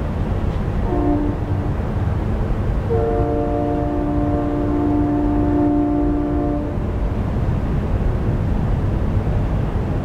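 Synthesized recreation of a distant Nathan K3H three-chime train horn: a short blast about a second in, then one long steady blast of several pitches together, which stops at about seven seconds, all with heavy reverb. A steady low rumble of background noise runs underneath.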